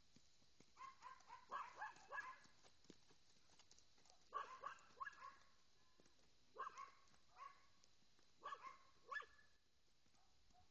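A dog barking in four runs of several quick barks, a couple of seconds apart, faint against quiet ground noise.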